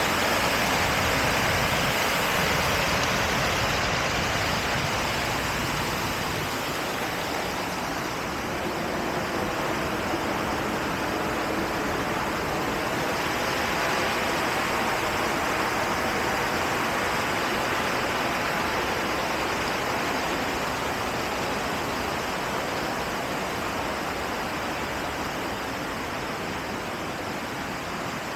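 River water rushing steadily, a little quieter toward the end.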